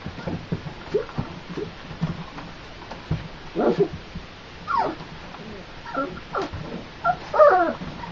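25-day-old flat-coated retriever puppies whimpering and yipping in short high calls, some falling in pitch, starting about halfway through with the loudest cluster near the end. Soft knocks and scuffles of the pups moving about come in between.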